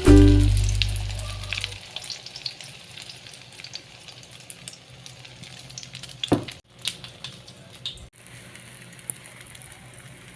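Egg with moringa leaves frying in a pan: a steady sizzle full of small crackles, with one louder clatter about six seconds in. A held music chord dies away over the first two seconds.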